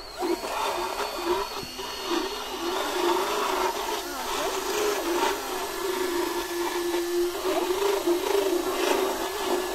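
Electric rotary dental float running as it files down a horse's teeth, its motor whine wavering up and down in pitch as the file bites and frees.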